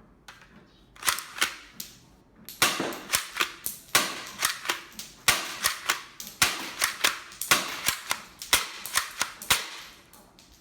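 Sharp plastic clicks and snaps from a toy shotgun, a few spaced ones and then a quick run of about three a second.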